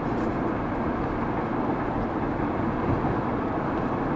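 Steady road and engine noise inside the cabin of a Ford Panther-platform sedan cruising at a held 42 mph.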